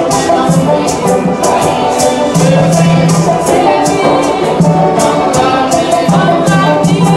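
Upbeat music with a steady shaker beat, about three strokes a second, over held bass notes and a singing voice.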